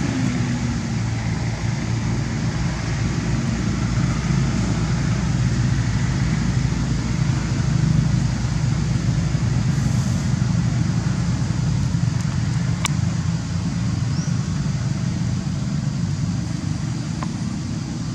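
Steady low rumble of outdoor background noise, with a single sharp click about two-thirds of the way in.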